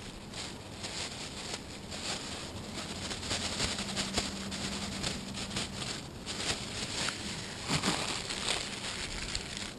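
Clear plastic zip-lock bag crinkling and rustling in the hands, with irregular crackles, as paydirt is shaken and squeezed out of it into a gold pan.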